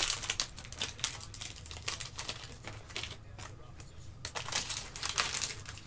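Foil trading-card pack crinkling as it is torn open and the cards are slid out, a run of irregular sharp crackles and clicks.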